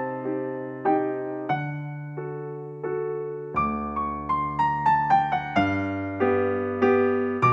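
Background music: a gentle piano or electric piano tune, notes struck in a steady rhythm over held bass notes.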